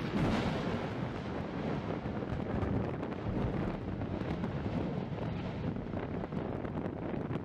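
Strombolian eruption from Mount Yasur's crater vents: a sudden loud blast right at the start, then a continuous rushing roar of gas and lava spatter with scattered crackles. Wind buffets the microphone throughout.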